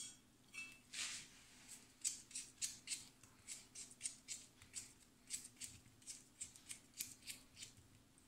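Knife cutting a peeled ripe plantain held in the hand into small chunks: a quick run of short, crisp cuts, about three a second.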